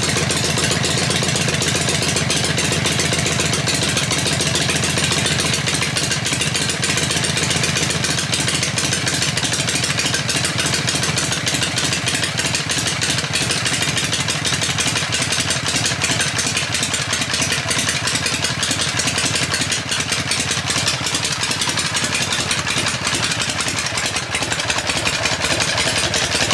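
Harley-Davidson Shovelhead air-cooled V-twin, freshly given a full engine overhaul, idling steadily with an even, rapid pulsing beat.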